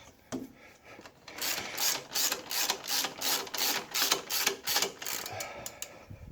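Hand ratchet wrench clicking in repeated back-swings, starting about a second in, as the alternator's adjuster bolt is tightened to tension the drive belt.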